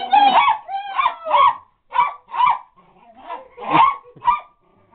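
Dog barking in short, high yips, about eight of them, mostly in quick pairs.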